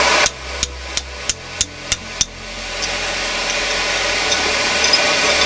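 Seven quick hammer blows on steel, about three a second, as a chisel is driven into hot bar stock on the anvil to cut it off. A steady rushing noise follows.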